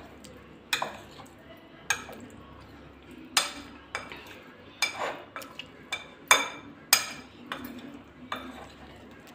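Spoon clinking and scraping against a bowl while paneer cubes are tossed in a flour, cornflour and chilli-powder coating. The clinks are short and irregular, about one a second.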